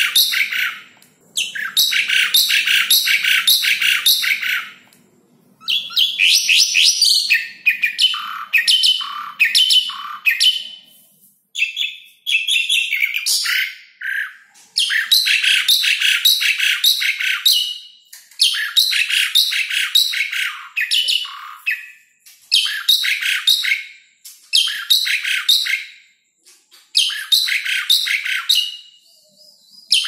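Asian pied starling singing: phrase after phrase of quickly repeated high notes, about four or five a second. Each phrase lasts two to four seconds and is followed by a short pause.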